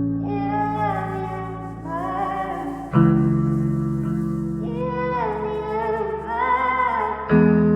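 Background music: held chords that change abruptly twice, under a wordless melodic line that sounds like a voice.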